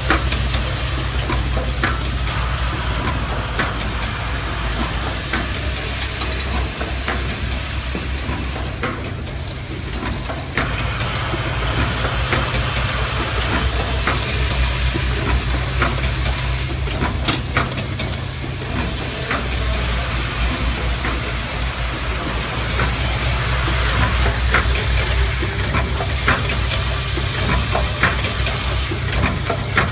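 Mist sprayer and lotion pump assembly machine running: a steady low hum and constant hiss, with scattered sharp clicks of the mechanism and parts.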